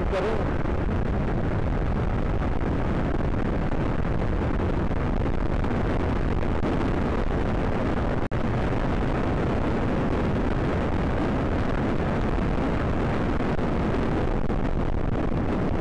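Loud, steady rush of wind and road noise on a motorcyclist's microphone while riding at speed, broken once by a very short gap about eight seconds in.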